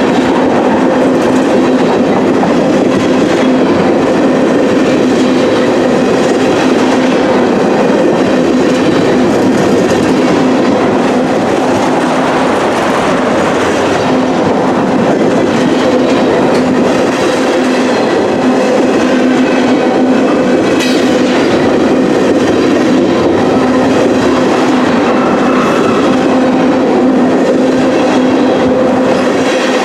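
Freight train tank cars rolling past: steel wheels on the rails make a steady, loud rumble with a steady ringing tone running through it.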